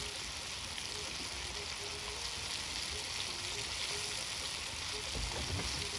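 Tomato and onion sauce sizzling steadily in a steel wok over a wood fire.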